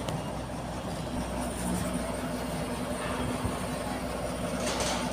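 Kato crane's diesel engine idling steadily, with a short hiss near the end.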